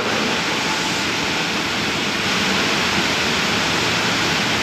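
Heavy tropical rain pouring down, a steady loud hiss.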